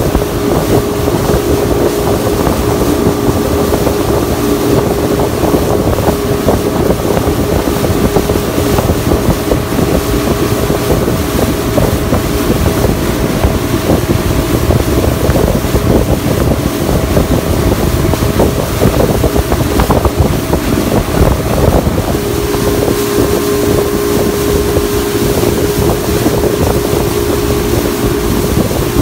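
Motorboat running at speed: a steady engine drone under the rush of water and spray along the hull, with wind buffeting the microphone.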